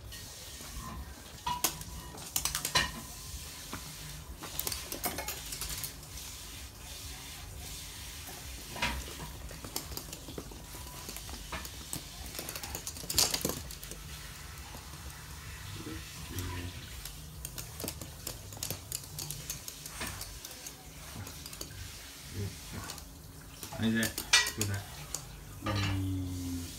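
Scattered clicks and taps of a toy poodle's claws on a hard floor as it scrabbles around plush toys, with a few louder knocks.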